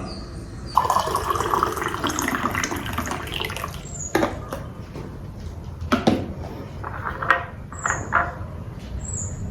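Water running from a tap into a sink, then several separate clinks and knocks of dishes.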